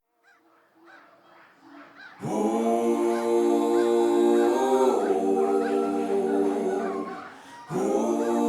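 Background music: sustained choir-like chords that begin a couple of seconds in after a near-silent pause, change chord twice and briefly fade out near the end before the next chord comes in.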